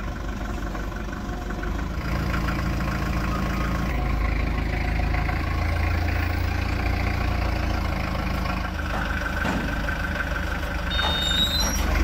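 Forklift engine running steadily at idle, a little louder from about two seconds in.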